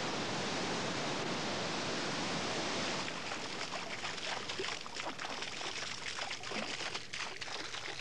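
River water rushing over rapids, a steady rush. About three seconds in it gives way to the patter and splash of fountain spray falling onto foliage.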